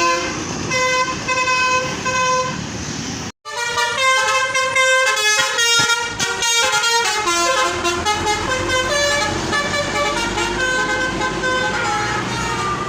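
Tour bus telolet horn, a set of electric multi-tone horns, playing quick tooting melodies of several notes together; the sound cuts out for a moment about a third of the way in, then tooting resumes. In the second half the bus engine rumbles underneath and the horn tones slide down in pitch near the end.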